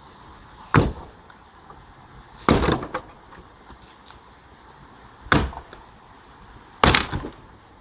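Four heavy hammer blows on a wooden rim joist, about one and a half to three seconds apart, knocking it loose; the second blow is longer and ragged.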